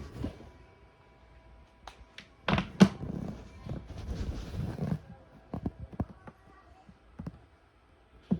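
Several thumps and knocks, the loudest two close together about two and a half seconds in.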